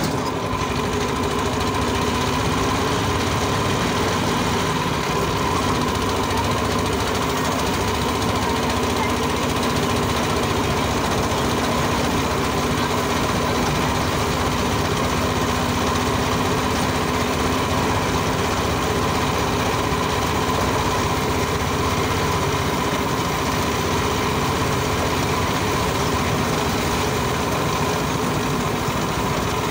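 Small motorcycle engine of a tricycle running steadily while riding, heard from the passenger sidecar.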